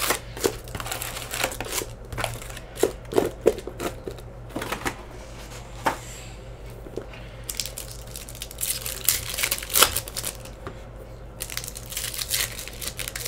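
Foil trading-card packs rustling and clicking as they are pulled from a cardboard hobby box and stacked. After a quieter moment midway, a foil pack wrapper crinkles steadily as it is torn open.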